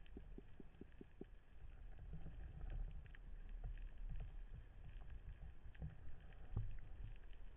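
Muffled underwater ambience from a spearfishing dive: a low steady rumble with scattered faint clicks, and a quick run of about six small ticks in the first second.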